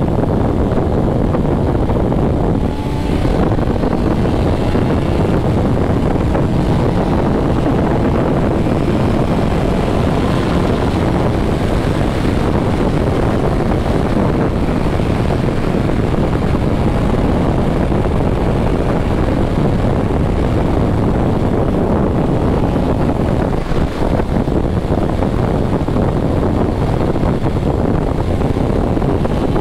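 BMW S1000RR inline-four sport bike running at high highway speed: a steady engine drone mixed with rushing wind.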